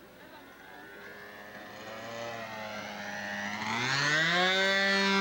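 Radio-controlled scale model seaplane's engine drone, steady at first, then rising in pitch and getting much louder from about three and a half seconds in.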